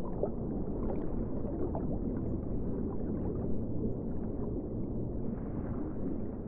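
Underwater ambience: a steady, muffled low rumble with no high sounds, dotted with small, quick rising bubble blips.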